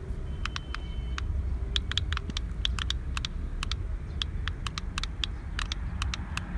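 Irregular sharp plastic clicks, about three a second, from the buttons of a toy RC car's handheld remote being pressed over and over, over a steady low rumble.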